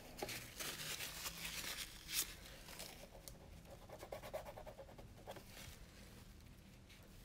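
Faint rustling and light scraping of painting materials being handled, with scattered small clicks and one sharper click about two seconds in.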